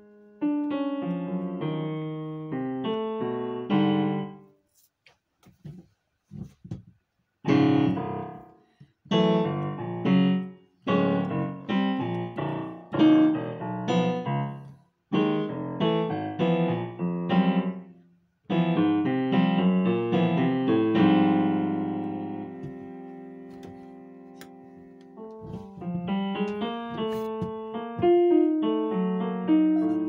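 Digital piano played in phrases of chords and short runs. It pauses briefly a few seconds in, then plays short chord stabs, holds one chord that slowly dies away in the middle, and picks up into busier playing near the end.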